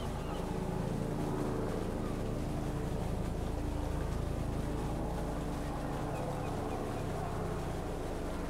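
An engine running steadily: an even, low drone that does not change in level.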